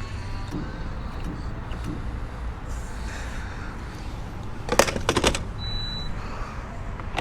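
Low, steady rumble of the Suzuki RM-Z450's single-cylinder engine running, with a quick cluster of sharp clicks about five seconds in.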